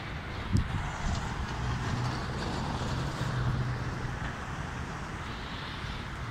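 Street traffic with a steady low engine hum, mixed with the rush of a shallow, rocky river. A single sharp thump comes about half a second in.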